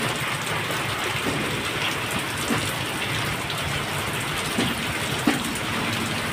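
Heavy rain pouring steadily, with water streaming off the edge of a roof close by. Now and then a louder drip or splat stands out, about three times.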